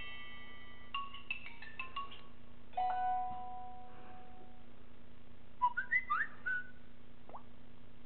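Samsung Galaxy Core Prime notification sounds previewed one after another through the phone's speaker: a quick run of bell-like notes about a second in, a held chime near three seconds, then a few quick rising whistle-like chirps near six seconds and a single rising blip after them.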